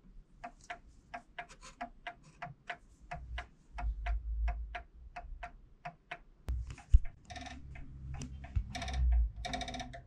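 Antique spring-driven mantel clock movement ticking steadily, about four ticks a second, its pendulum just set swinging by hand and the brass gear train running. A low rumble of handling comes in twice.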